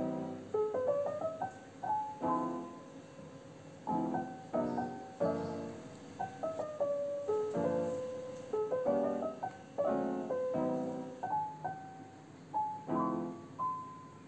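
Background piano music: struck chords and a simple melody of single notes, each fading after it is played.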